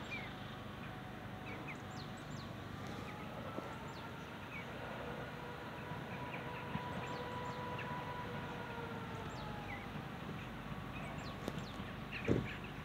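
Birds call in short chirps here and there over a steady outdoor background. In the middle a faint whine from a distant approaching train rises and fades over several seconds. A short bump comes near the end.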